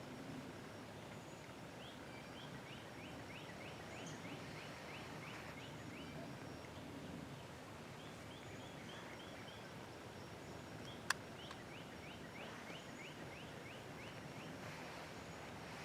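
A bird calling in rapid runs of short, high chirps, several runs in a row, over a low steady rumble. A single sharp click about eleven seconds in.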